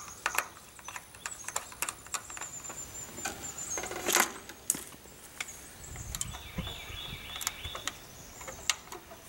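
Scattered sharp clicks and light rattles of hand work at a metal solar combiner box, as wires are fed into its terminals and a pair of cutters is handled. The loudest cluster of clicks comes about four seconds in.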